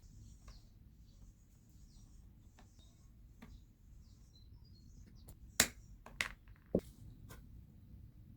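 Hand-work noises from a cardboard build: soft scrapes and rustles of cardboard being handled. A little past halfway come three sharp clicks or taps, each about half a second after the last.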